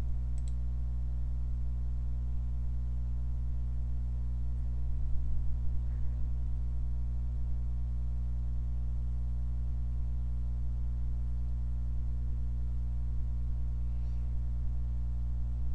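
Steady electrical mains hum: a low, unchanging buzz with many evenly spaced overtones.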